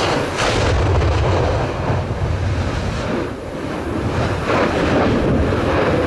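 Newly opened volcanic fissure erupting: a continuous deep rumble, loudest in the first few seconds, broken by several sharp explosive bursts.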